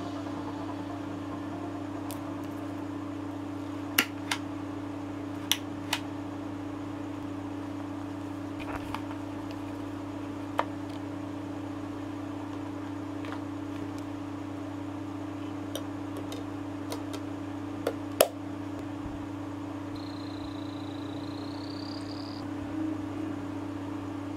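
Sharp plastic clicks and knocks from hands handling a wall-mountable CD player, its disc and its remote, scattered over a steady low hum. A faint, slightly rising high whine lasts a couple of seconds near the end.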